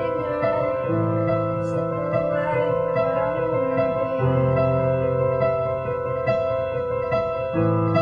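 Slow piano music: sustained chords, with the low chord changing about every three seconds.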